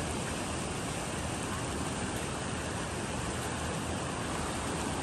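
A shallow river rushing over rocks, a steady, even wash of water noise.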